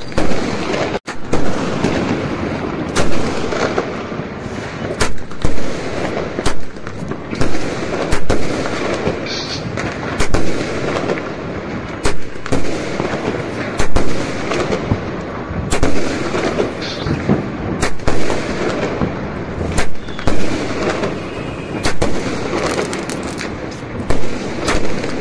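Fireworks exploding: a steady, irregular run of sharp bangs, about one or two a second, over a constant noisy background.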